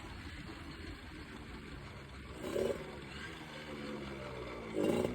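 Suzuki Tornado motorcycle's two-stroke engine idling while being warmed up. The throttle is blipped briefly about two and a half seconds in and again near the end.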